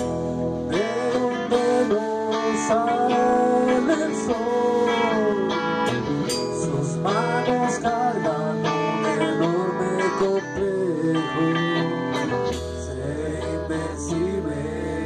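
Rock band playing an instrumental passage: electric guitar with bent, gliding notes over bass and drums, with the low end growing heavier near the end.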